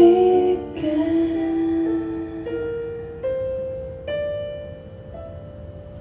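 Kurzweil SP2X stage piano playing a slow closing passage: a chord at the start, then single notes about once a second, each left to ring and fade, softer toward the end.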